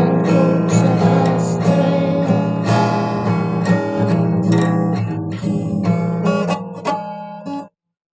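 Music with strummed acoustic guitar, the end of a song: it fades a little and stops abruptly near the end.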